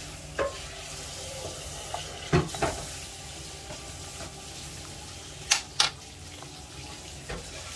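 A metal spoon clinking a few times against a glass jar and a ceramic bowl as green chutney is spooned onto yogurt. The two loudest clinks come close together a little past halfway. A steady hiss runs underneath.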